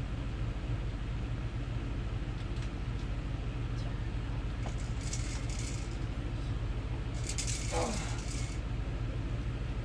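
A steady low hum, with a few faint clicks and two brief swishy splashes, about five and seven-and-a-half seconds in, as a fish is brought up by hand through a hole in the ice.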